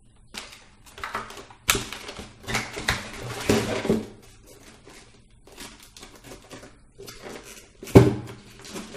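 Handling noise from unpacking: rustling, clicking and clattering of plastic parts and a styrofoam box, busiest in the first four seconds. There is a sharp knock about two seconds in and a louder one near the end.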